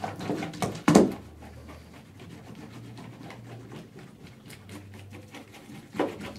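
Magnepull wire-pulling wand's magnet sliding and scraping over a drywall panel, with small clicks, as it drags the magnet inside the wall down toward the opening; a single sharp thump about a second in.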